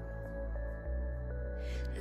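Background music: soft sustained chords over a steady bass, with the bass note changing a little under a second in.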